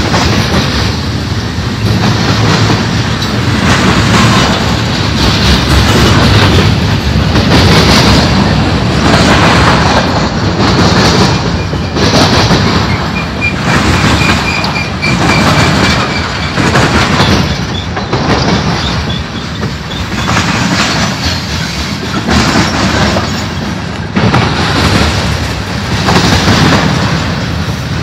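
Freight train cars rolling past close beside the track: steel wheels clacking over the rail joints in a repeating rhythm, with the loudness swelling as each truck passes. A thin high squeal sounds for a few seconds around the middle.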